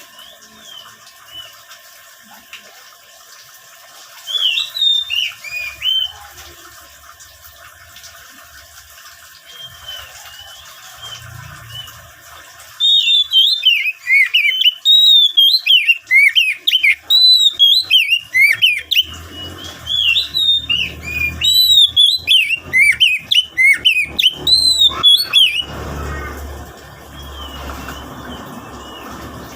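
Oriental magpie-robin (kacer) singing. A short loud burst of whistled notes comes about four seconds in, then from about thirteen seconds a long run of fast, varied whistled phrases sliding up and down in pitch, which thins out near the end.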